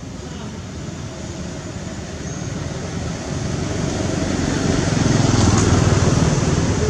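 A motor vehicle passing: a low engine-and-road rumble that grows louder to a peak about five seconds in, then begins to ease off.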